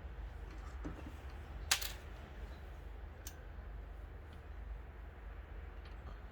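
A few light, sharp clicks and taps from small parts being handled during a repair, the sharpest about two seconds in and a smaller one about a second later, over a steady low hum.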